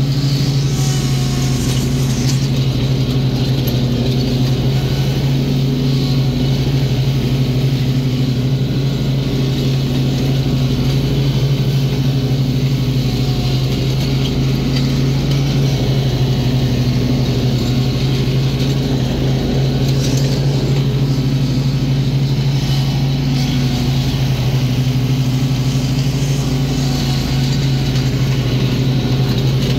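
Gravely riding mower's engine running steadily under load while mowing, a loud even drone with a slow, regular pulsing in its tone.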